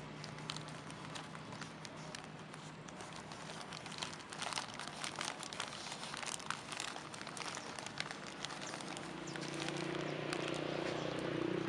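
Clear plastic bag crinkling and crackling as it is handled and pulled down over a freshly taped lemon graft. A low hum rises near the end.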